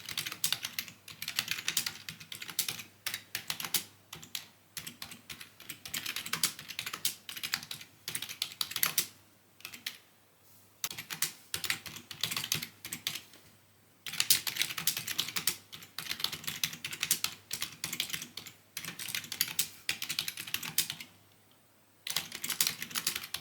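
Typing on a computer keyboard: rapid runs of key clicks broken by a few short pauses.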